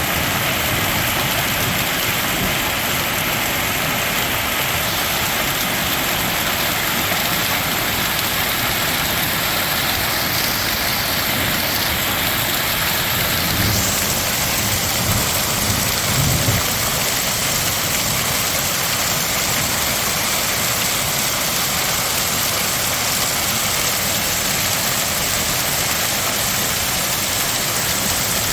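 Hail and heavy rain pelting down in a loud, steady, dense roar, with a few low thumps about fifteen seconds in.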